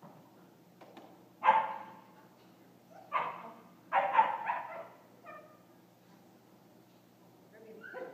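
Belgian Malinois barking: single sharp barks a second or two apart, two close together about four seconds in, then a quiet stretch before one more bark near the end.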